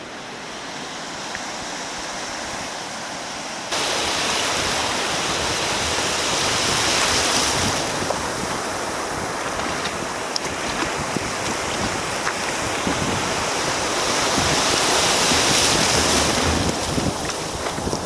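Surf breaking on a beach; about four seconds in it cuts to a louder, steady rush of breaking waves and wash around a sea kayak out in the surf, with wind buffeting the microphone.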